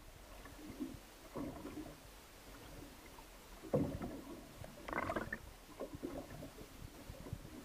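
Muffled underwater sound picked up by a submerged camera: low gurgling and rumbling of moving water with irregular dull knocks, the loudest about four and five seconds in.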